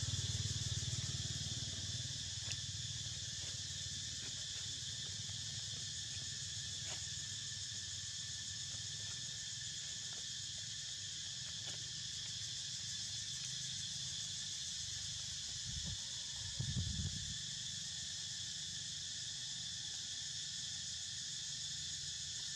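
Steady high-pitched drone of insects, with a low rumble in the first couple of seconds and a brief low thump about three-quarters of the way through.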